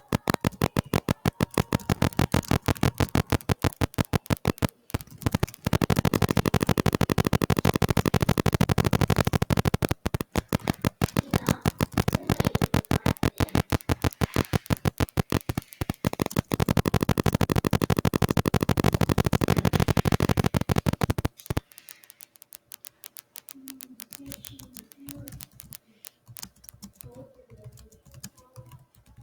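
Keyboard typing: a fast, even stream of loud keystroke clicks that stops suddenly about three quarters through, followed by softer, scattered taps.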